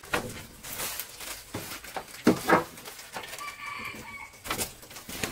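Chicken squawking and clucking in a series of short, sharp calls, the loudest a close pair a little over two seconds in, then a brief, more tuneful call just after three seconds.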